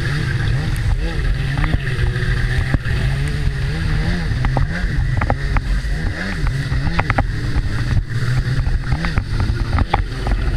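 Freeride jet ski engine running hard, its pitch rising and falling again and again as the throttle works on and off, with sharp knocks scattered through.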